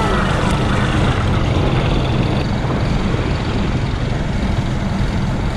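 Motorcycle engine running at a steady cruising speed, with wind and road noise rushing over the rider's microphone.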